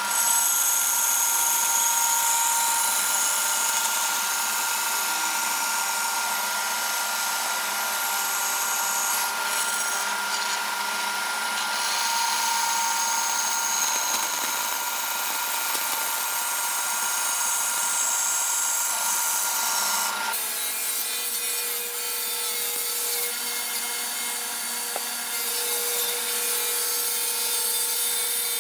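Bandsaw running and cutting through aluminum angle stock: a steady whine from the machine with the blade scraping through the metal. About twenty seconds in, it cuts abruptly to a different saw running with a lower steady hum.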